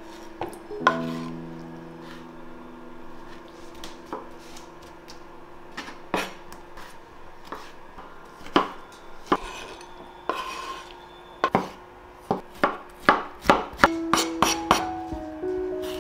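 Knife chopping tomatoes on a wooden cutting board: sharp, irregular knocks of the blade on the board, coming quicker and louder toward the end. Soft background music with held notes plays underneath.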